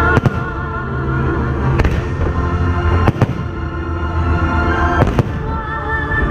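Fireworks shells bursting: four sharp bangs, one to two seconds apart, over music with held notes and a steady bass.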